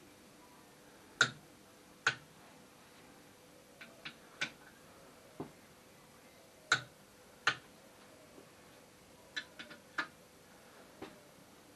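Sharp, irregular clicks and taps of hand tools on metal engine parts, about a dozen in all, some coming singly and some in quick pairs and clusters.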